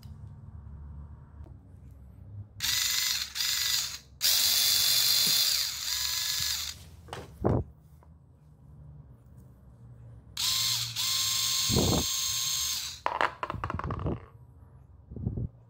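Small DC motor with a drill-type gearbox, run in short bursts off batteries: four spells of whirring gear noise, each starting with a rising whine as the motor spins up, the longest lasting about two and a half seconds. Handling knocks fall between the runs.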